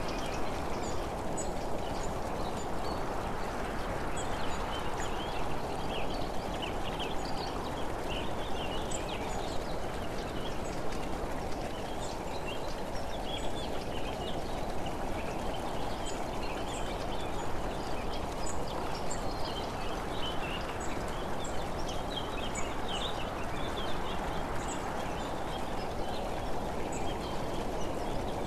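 Steady wind and road noise from a camera moving along a road, with birds chirping over it in short, irregular calls.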